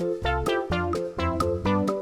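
Upbeat children's background music on keyboard or synthesizer, with short notes over a steady beat.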